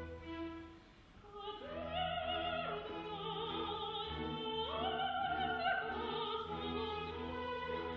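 A female opera singer sings with a wide vibrato over held orchestral chords. She comes in about a second and a half in, after the orchestra briefly drops away.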